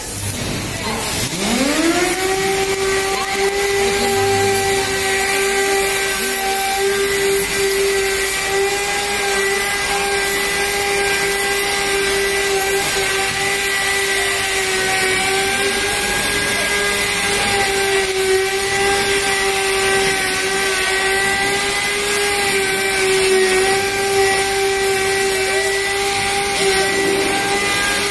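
Electric angle grinder spinning up about a second in, then running at a steady whine as it grinds on heavy metal castings, over the continuous hiss of arc welding.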